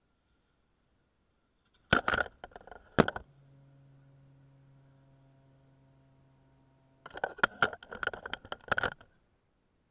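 Knocks and scrapes on a ground-level action camera as a remote-control drift car runs into it. There are two sharp knocks about two and three seconds in, then a faint steady hum while the car's tyre rests against the lens. Near the end comes a cluster of rapid knocks and scrapes lasting about two seconds, as the camera is shoved aside.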